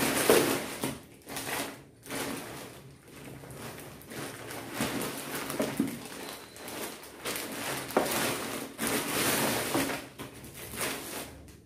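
Rustling and crinkling of courier parcel packaging being handled, in irregular spells with short pauses.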